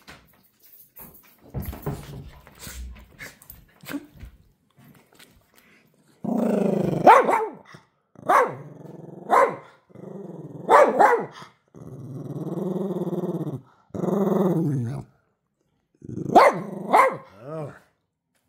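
A dog growling and grumbling in long drawn-out growls, broken by short sharp woofs, after a few seconds of soft rustling and thumps.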